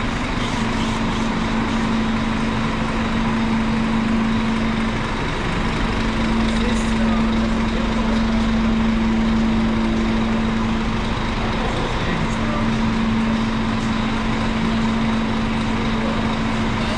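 Steady mechanical drone: a constant low hum over an even rushing noise.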